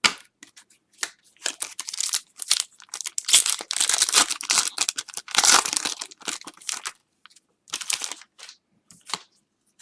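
Trading-card pack wrapper crinkling and tearing as a pack of hockey cards is opened and handled: a dense run of crackles for several seconds that stops about seven seconds in, with a brief rustle a second later.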